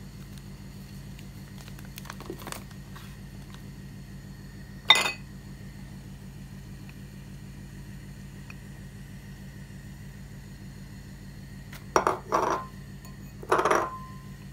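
Clinks and knocks of a container and utensils against a glass mixing bowl while starch is poured over salmon skins. There is one sharp knock about five seconds in and three close together near the end, the last ringing briefly, over a steady low hum.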